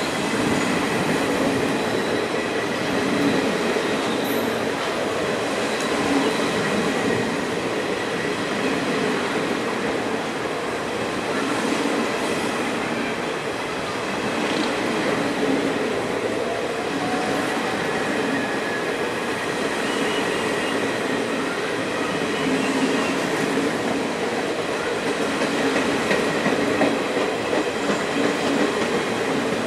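Passenger train's coaches rolling steadily past, wheels clattering in a repeating rhythm on the rails, with a thin steady high wheel squeal over the rumble.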